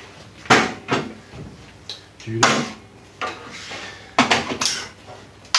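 Knocks and clatter of a plunge router being lifted out of a router table and handled: several sharp irregular knocks, one with a duller thud about two and a half seconds in.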